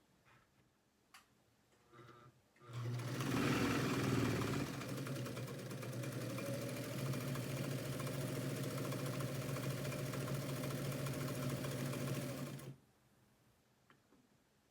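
1956 Morse TZ-5 sewing machine running steadily for about ten seconds on its freshly extended foot-pedal cord, stitching a scrap of fabric, then stopping suddenly. A couple of faint clicks come just before it starts.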